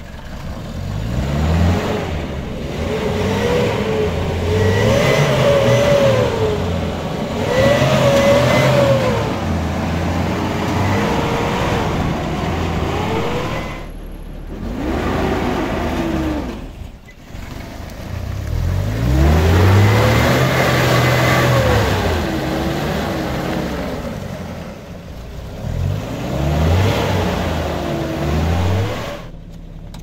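A motor vehicle's engine revving up and falling back again and again, each rise lasting a couple of seconds, with a short lull about halfway through.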